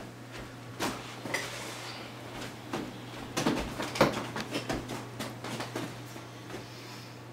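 Scattered light knocks and clicks, like objects being handled or set down, over a steady low hum. The knocks cluster about halfway through.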